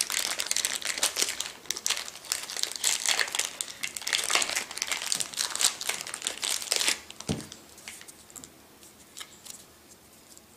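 Clear plastic wrap crinkling and tearing as it is pulled off paper-wrapped coin rolls. The crinkling stops about seven seconds in, leaving only a few soft clicks and rustles as the paper roll is handled.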